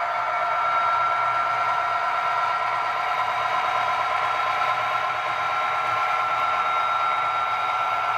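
Sound decoder of an HO scale Athearn Genesis SD70ACe model locomotive (Tsunami 2) playing a steady diesel engine sound through its small speaker as the train runs.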